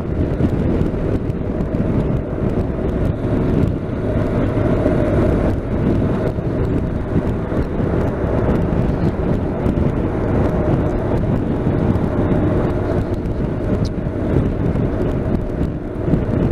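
Steady wind and road noise from riding a motorcycle, with the engine running underneath at an even pace.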